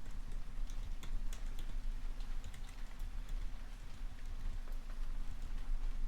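Typing on a computer keyboard: irregular key clicks at an uneven pace, over a steady rain recording.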